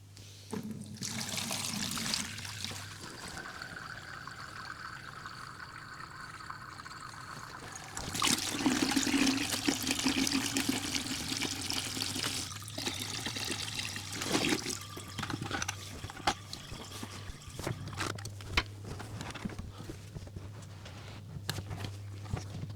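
Water being taken out of an aquarium, trickling and pouring into a container, louder for a few seconds about eight seconds in. Scattered small knocks follow later.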